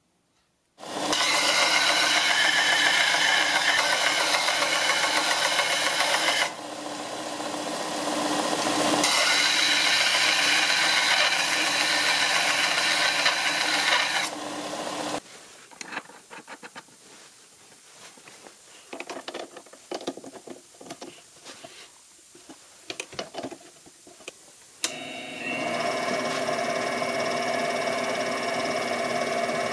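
Belt sander running with a steel washer held against the belt to grind a flat on its edge; the grinding is loud while the washer is pressed on and drops back partway through. After the sander stops come scattered clicks and taps. Near the end a metal lathe starts and runs steadily.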